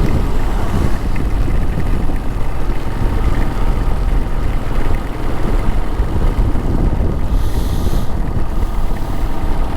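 Heavy wind rumble on the microphone while riding along a road, with the vehicle running underneath, and a short burst of hiss about seven and a half seconds in.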